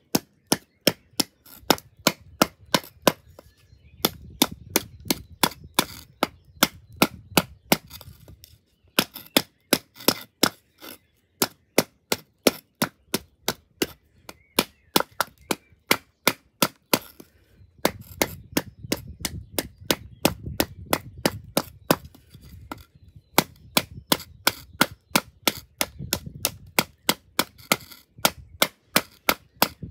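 A ceramic kitchen knife being driven into hard wood, blow after blow: sharp wooden knocks about two to three a second, with brief pauses every few seconds.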